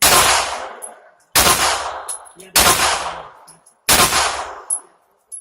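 Four shots from a 9mm pistol, fired about a second and a quarter apart, each with a trailing echo, and short high pings between them.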